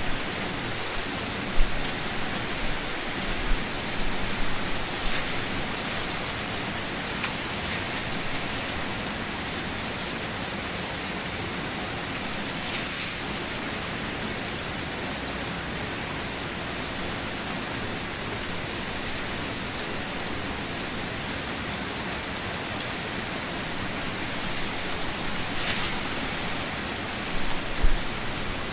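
Steady rain falling onto a puddled flat surface: a dense, even hiss of drops hitting water, with a few louder close drops and short thumps now and then.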